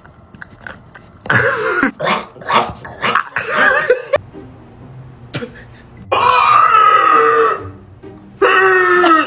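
A person making comic vocal sound effects: first a run of short, throaty, cough-like noises, then two drawn-out pitched vocal sounds, one starting about six seconds in and one near the end.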